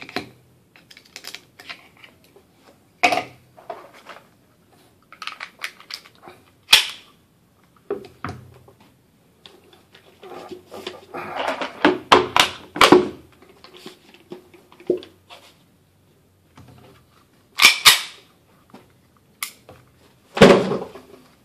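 Metallic clicks and clacks of an H&K HK4 pistol and its magazine being handled, coming irregularly, with a busier run of clatter in the middle and a few louder knocks.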